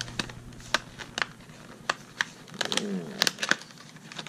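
Stiff clear-plastic blister pack being pried and flexed open by hand, giving an irregular string of sharp clicks and crackles.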